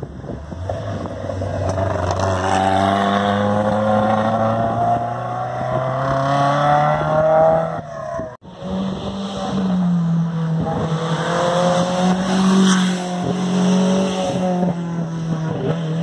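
Historic rally car engines accelerating hard on a special stage. In the first part one engine's note climbs steadily as it revs up. After an abrupt cut about eight seconds in, a second engine runs at high revs, its pitch dipping and stepping at gear changes.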